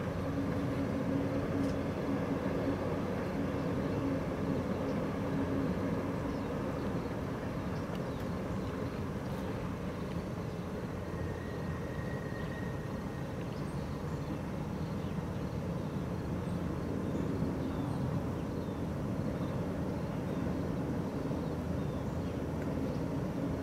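Diesel-hauled passenger train running steadily across the water, its locomotives heard as a distant, even rumble with a faint hum.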